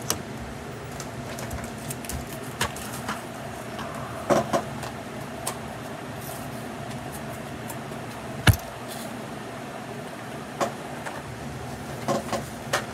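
Scattered small clicks and knocks of batteries and a plastic Slinky Dog toy being handled as new batteries are fitted, the sharpest click about eight and a half seconds in, over a steady background hum.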